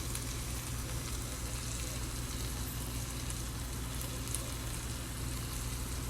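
Shrimp frying in a pan with teriyaki sauce: a steady sizzle with small crackles, over a steady low hum.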